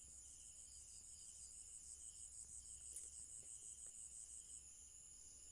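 Faint crickets chirping in a rapid pulsing trill, about six pulses a second, over a steady high insect drone; the pulsing stops near the end.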